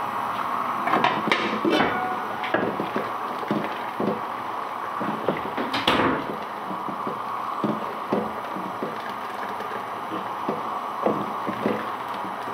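Curry boiling vigorously in a large aluminium pot, a steady hiss with many small bubbling pops, while a ladle stirs and lifts it; one sharper scrape or knock about six seconds in.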